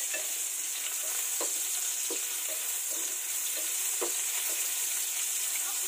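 Chopped garlic and onion sizzling in hot oil in a non-stick frying pan: a steady frying hiss, as the aromatics are sautéed. A spatula stirs them, scraping and tapping the pan a few times.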